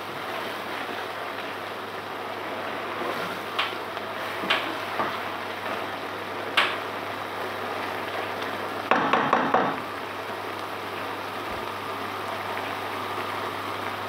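Courgette curry bubbling and sizzling in a non-stick pan over a high gas flame, the vegetables' released water cooking off. A spatula stirring it knocks against the pan a few times, with a quick run of knocks about nine seconds in.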